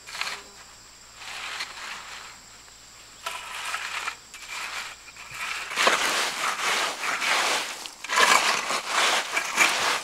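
Gritty scraping and crunching of a damp sand-and-cement mix being pushed and levelled, first with a wooden board and then by hand. The strokes come in repeated sweeps and grow much louder and closer about six seconds in.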